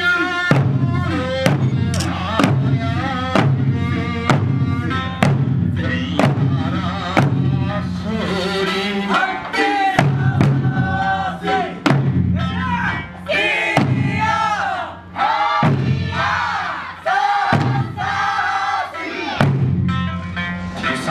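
Eisa music: Okinawan folk singing over a steady bass, with the dancers' large barrel drums and small hand drums struck together on the beat, roughly one and a half strokes a second, and shouted calls from the troupe.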